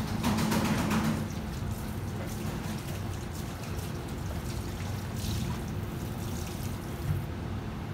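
Water running from a kitchen tap, loudest for about the first second, then softer over a steady low hum, with a faint clink about five seconds in.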